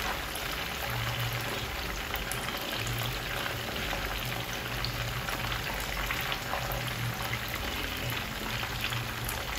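Croaker fish pieces deep-frying in hot oil in a pan: a steady sizzling crackle of bubbling oil.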